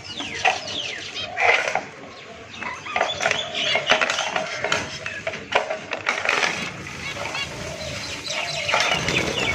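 Pet birds chirping and calling, many short overlapping calls with some quick falling notes, and a few sharp clicks among them.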